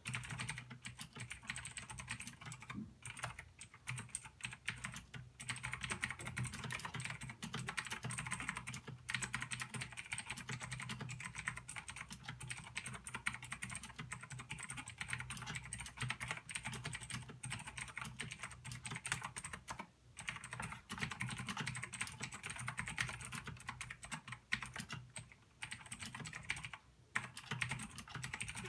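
Fast, continuous typing on a Razer BlackWidow Ultimate 2014 mechanical keyboard with clicky Razer Green switches, the keys clacking in a dense patter with a few brief pauses. A steady low hum runs underneath.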